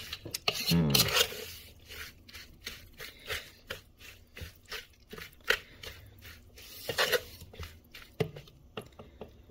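Wooden spoon stirring marinated eggplant skins in a bowl: irregular clicks and scrapes as the spoon knocks the bowl and moves through the wet mixture. A brief falling vocal murmur comes about a second in.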